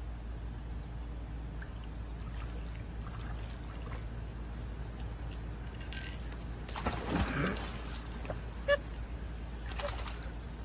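A large dog falls into a swimming pool with a splash about seven seconds in, over a steady low background hum. A short, sharp sound follows about a second later.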